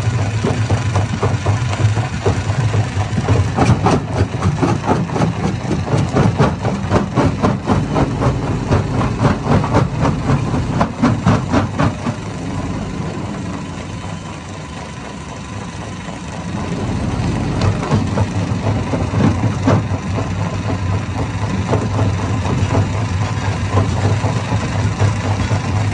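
Stone-crushing hammer machine running with a steady low hum and a rapid clatter of knocks as rock is broken. It eases off to a quieter run for a few seconds past the middle, then picks up again.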